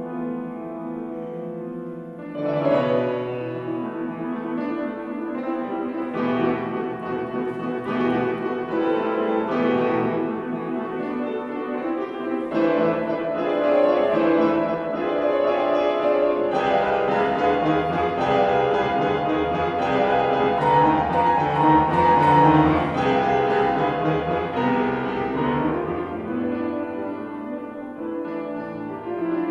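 Grand piano played solo in classical style. A held chord gives way to a new passage that enters with a strong attack about two seconds in, builds to its loudest about two-thirds of the way through, and softens near the end.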